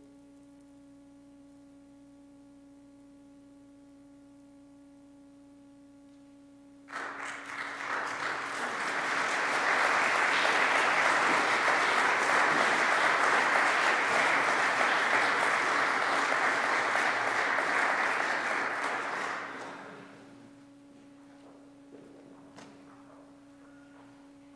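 Audience applauding. The applause starts abruptly about seven seconds in after a quiet pause, holds steady, and fades away about twenty seconds in, over a faint steady hum.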